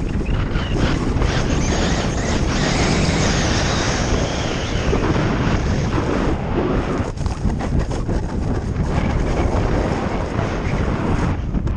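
Wind buffeting a GoPro Hero 4 Session's microphone at snowboarding speed, with the snowboard hissing and scraping over groomed snow. The noise is loud and steady, with a rumbling low end.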